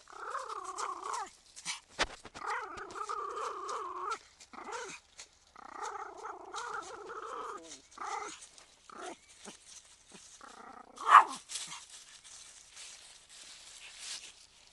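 Pomeranian (Zwergspitz) dog growling and grumbling in several long, wavering drawn-out sounds, then shorter ones. A sharp knock comes about eleven seconds in.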